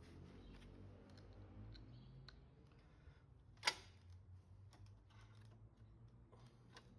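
Faint, scattered clicks and taps of small metal parts and hand tools being handled, with one sharper click about halfway through.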